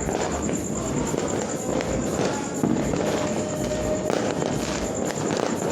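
Fireworks and firecrackers crackling and popping continuously in a dense, unbroken barrage.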